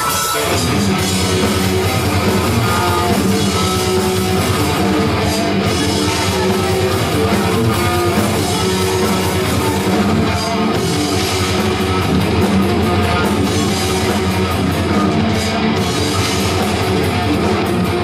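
Live rock band playing loud and steady: electric guitars, bass and drum kit.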